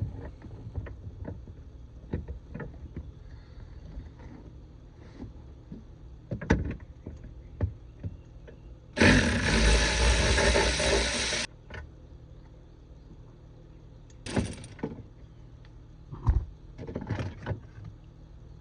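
Scattered clicks and knocks of hand tools and fingers working screws and plastic trim on a car's fuel pump relay mount. A loud rushing noise runs for about two and a half seconds in the middle and cuts off suddenly.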